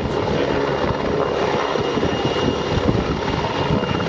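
PZL W-3A Sokol twin-turboshaft helicopter hovering overhead: steady, loud rotor and engine noise with a thin, constant high whine.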